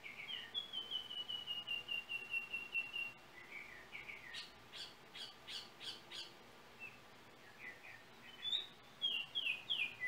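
Yellow oriole singing: a quick run of about a dozen whistled notes falling slightly in pitch, then a few harsh, rasping notes, then more short whistles climbing higher near the end.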